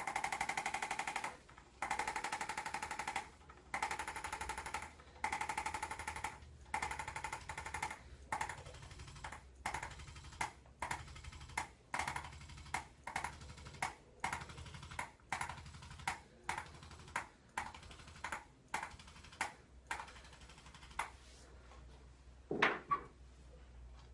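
Chiropractic adjusting instrument firing rapid trains of taps to deliver a spinal adjustment. It gives five bursts of about a second each, then a run of short bursts roughly every half-second, and a single sharp click near the end.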